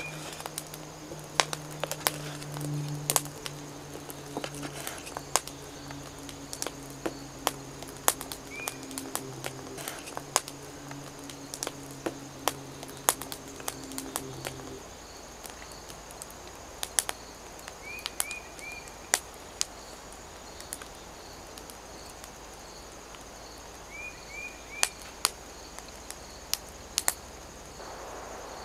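Outdoor woodland ambience: scattered sharp clicks, small rising bird chirps in quick groups of two or three, and a faint steady high insect-like buzz. A low hum runs underneath and stops about halfway through.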